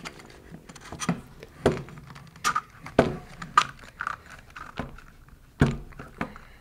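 Irregular clicks and knocks as a robot's toothed track is worked onto its wheels and the metal channel chassis is shifted about on a wooden tabletop.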